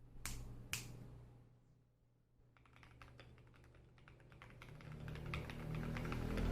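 Typing on an Ajazz AC081 mechanical keyboard with lubed KTT Red Wine linear switches, PBT keycaps and tape and PE-foam mods. Two single keystrokes near the start, then a run of quick typing from about two and a half seconds in that grows louder.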